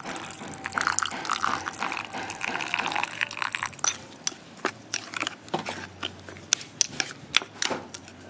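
Liquid poured in a thin stream into a bowl of chunky spicy seafood dipping sauce for the first few seconds. Then a metal spoon stirs the sauce, clicking repeatedly against the bowl.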